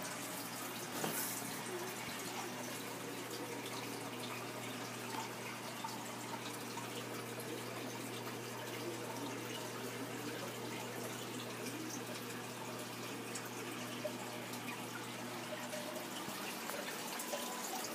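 Steady running water in an aquarium, with a low steady hum underneath and a few faint drips or ticks.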